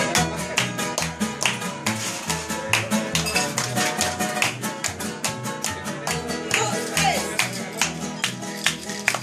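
Live Latin American trio of two acoustic guitars and an upright bass playing without singing: steady rhythmic strumming of chords over plucked bass notes.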